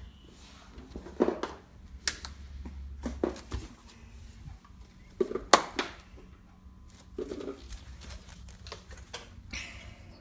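A handful of irregular knocks and taps, the sharpest about five and a half seconds in, over a low steady hum.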